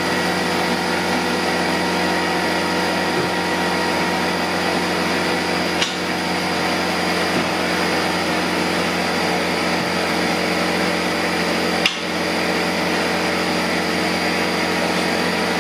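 Steady hum of an electric motor running at a constant pitch, with two faint clicks about six and twelve seconds in.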